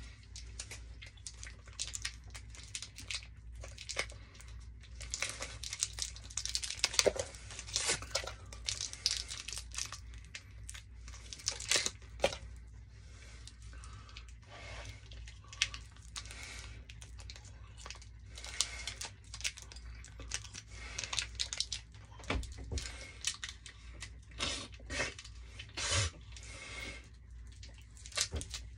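Candy wrapper crinkling and tearing in many short, irregular crackles as a chewy taffy candy is peeled off its paper.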